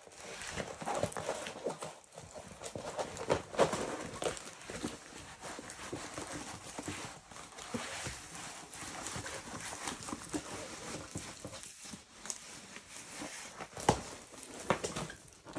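A diamond-painting canvas with its plastic cover being rolled backwards by hand to flatten its curl: irregular crinkling and rustling with scattered taps, and a couple of sharper knocks.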